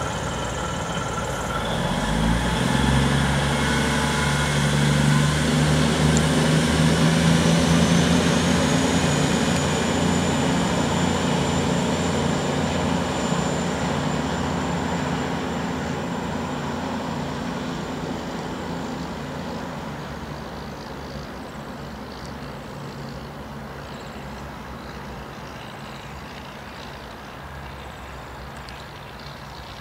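V/Line VLocity diesel multiple unit pulling away: its diesel engines throttle up about two seconds in, a high whine rises and then holds, and the sound fades steadily as the train draws away.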